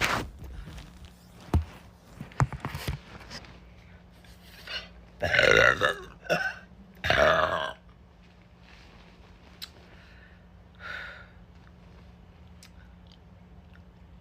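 A woman burping: two long, loud belches about five and seven seconds in, and a fainter one near eleven seconds, with a few short clicks and knocks in the first seconds.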